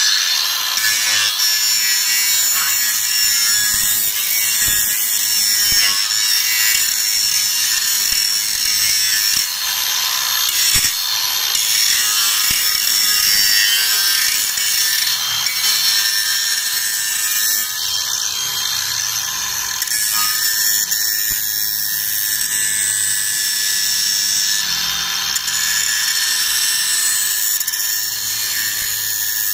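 Makita DGA504Z 18 V brushless cordless angle grinder with a Makita grinding disc, grinding the edge of a steel plate under light pressure: a steady, high-pitched grinding hiss.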